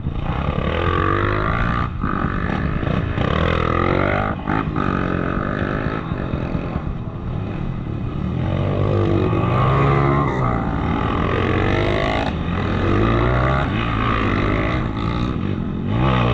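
Off-road motorcycle engine revving up and down as it is ridden, its pitch rising and falling over and over.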